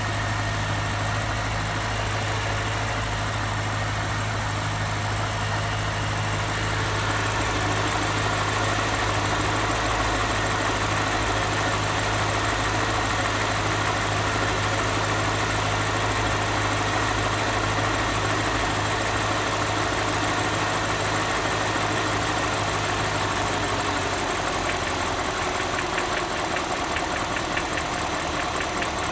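BMW N62B44 4.4-litre V8 idling steadily, making a noise at idle that the owner cannot place and asks for help with. A strong low hum weakens about three-quarters of the way through.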